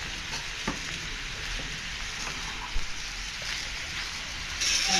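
Stir-fry of tofu cubes, meat and onion sizzling in a nonstick frying pan, an even hiss with a couple of faint clicks. Near the end the sizzling grows louder as the food is stirred.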